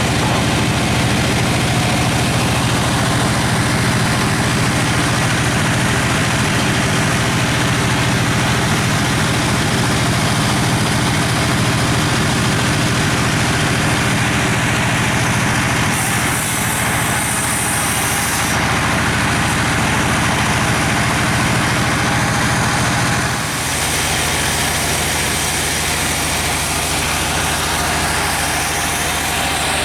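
Engine-driven sawmill machinery running steadily: a low engine hum under a broad mechanical noise. A brief high hiss joins a little past halfway, and the level dips for a moment about three-quarters of the way through.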